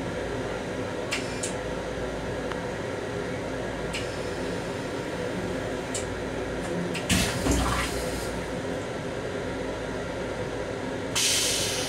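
Toilet in an M7 railcar restroom flushing: water rushing in its stainless-steel bowl over the steady rumble of the train, with a few sharp clicks. The loudest rush comes about seven seconds in, and a hiss starts near the end.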